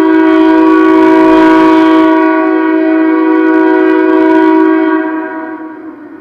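Locomotive air horn sounding one long blast, several notes together in a chord. It holds steady for about five seconds, then fades away near the end. The sound comes through a live webcam's audio feed.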